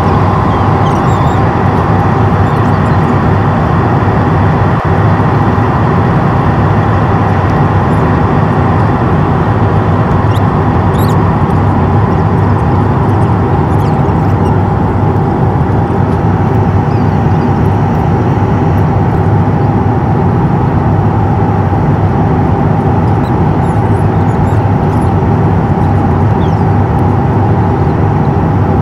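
Steady in-cabin drone of an Airbus A350-900 in flight, heard at a window seat by the wing: Rolls-Royce Trent XWB engine and airflow noise, even in level, with a few steady hums running through it.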